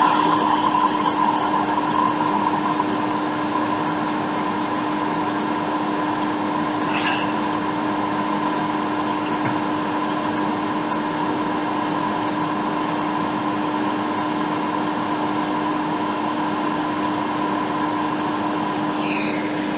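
Steady whir of a small electric fan motor running on the repair bench, with a constant low hum; slightly louder in the first second, then even.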